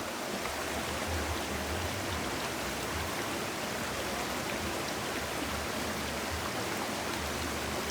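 Steady rush of flowing river water, swollen with heavy rain, heard as an even hiss.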